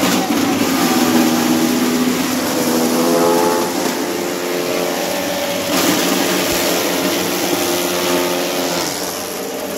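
Motor-driven chaff cutter running while it chops Super Napier grass stalks into fodder: a steady machine whir whose pitch wavers slightly as stalks are fed through.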